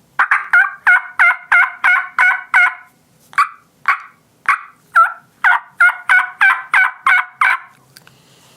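Hen turkey yelps on a diaphragm mouth call: a quick run of about seven notes, four slower notes, then another quick run, each note breaking from a higher to a lower pitch.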